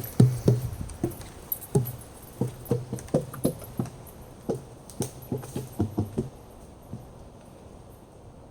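A hiker's footsteps on the forest trail, close to the microphone: a run of soft, irregular thumps for about six seconds, then fading to quiet background.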